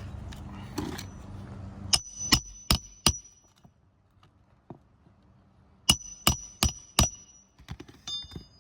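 Hammer driving roofing nails to fasten a new asphalt shingle: two sets of four quick ringing blows, each set about a second long, a few seconds apart.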